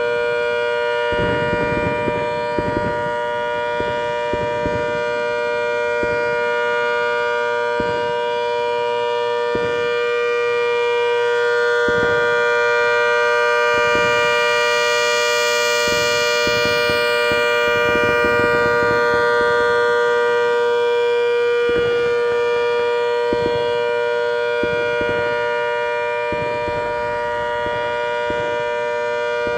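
Rotating outdoor warning siren sounding a steady, held tone, loud and slowly swelling and fading as the horn turns toward and away from the listener.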